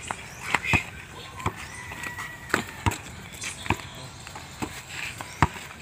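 Basketball bouncing on a packed-dirt court as it is dribbled: about eight short, sharp thuds at irregular intervals, roughly one every half-second to second.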